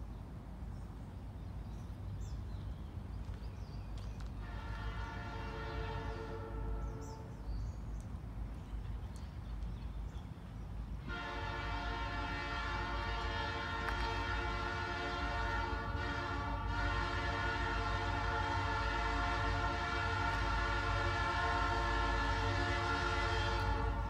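Norfolk Southern locomotive air horn sounding as a chord. One blast of about three seconds comes a few seconds in; a long blast starts about halfway through, breaks briefly once, and runs on, growing louder, over a steady low rumble.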